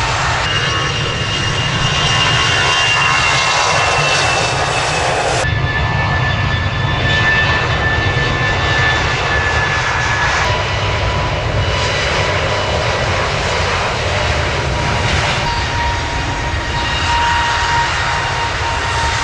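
Airbus A320-family turbofan jet engines running steadily, a low rumble with high whining tones held above it; the tones jump to a different pitch at two cuts between recordings, about five and ten seconds in.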